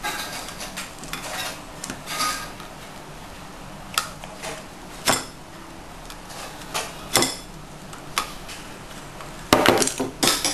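Cutlery and dishes clinking and knocking during a meal: scattered single taps, then a quick run of knocks near the end.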